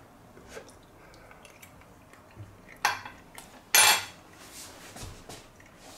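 Metal fork clinking against tableware in a few short clicks, with a louder clatter about four seconds in.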